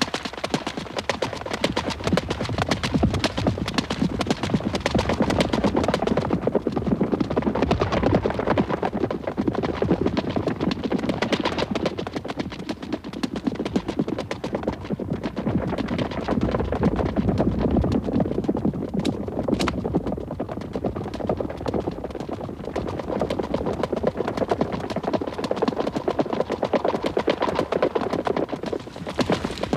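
Horse hoofbeats in quick, continuous succession as the horse is ridden at speed.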